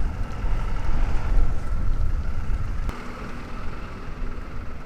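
Wind buffeting the microphone of a bike-mounted action camera while cycling along a city street, a heavy fluctuating rumble that eases about three seconds in, with road noise underneath.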